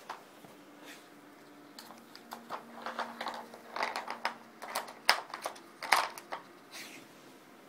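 A dog working a Dog Brick puzzle toy: irregular clicks and clacks of its plastic pieces being nosed and knocked about, busier after the first couple of seconds, with the sharpest clacks a little past the middle.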